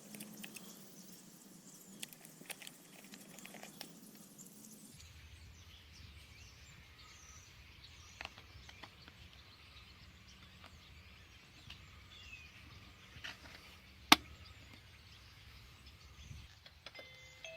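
Faint outdoor background with a few small handling clicks and one sharp click about fourteen seconds in. Near the end the wireless doorbell's chime starts to ring.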